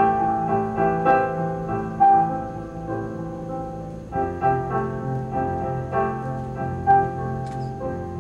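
Solo piano playing slowly, single melody notes struck over held low chords: the instrumental close of a recorded ballad after its last sung line.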